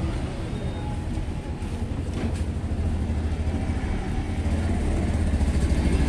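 A steady low mechanical rumble that holds an even level and pitch throughout.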